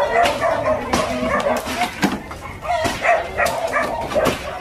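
Hammer blows and wood being knocked and pried apart as a plywood-and-timber shack is demolished, with a dog barking repeatedly over it.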